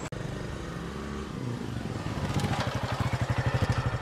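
Motor scooter engine running with a fast, even putt-putt that grows louder about two seconds in.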